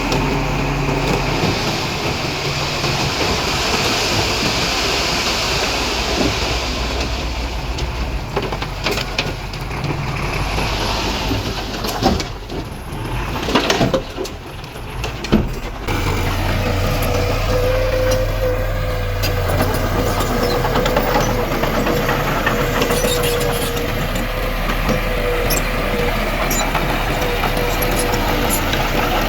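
Diesel engine of heavy earthmoving machinery running steadily under work. About twelve seconds in it briefly drops away, with a few sharp knocks. It then settles into a steadier low drone with a thin steady whine over it.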